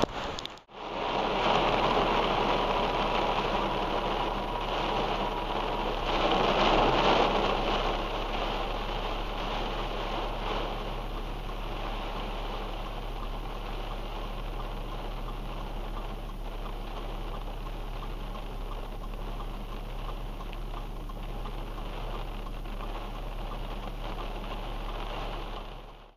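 Heavy rain pouring steadily, an even hiss of rain on pavement and trees from a nor'easter-type coastal storm. It cuts out briefly just after the start, is loudest a few seconds in, and fades out at the end.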